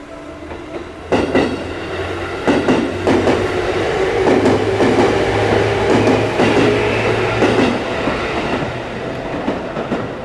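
Electric train passing over a level crossing, coming in suddenly about a second in: its wheels clack over the rail joints in a run of sharp knocks above a steady low motor hum, easing off near the end. The crossing's warning bell rings under it.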